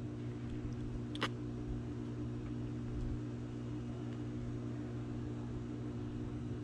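Steady low machine hum made of several steady tones over a faint hiss, with one short click a little over a second in.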